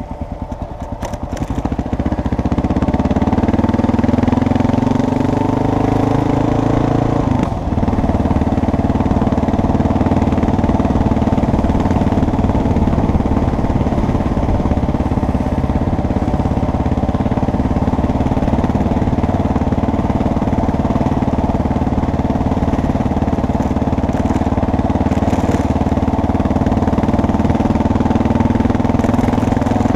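Vehicle engine pulling away, its pitch climbing for the first several seconds. About seven and a half seconds in there is a brief dip, like a gear change, and the engine then runs steadily at cruising speed.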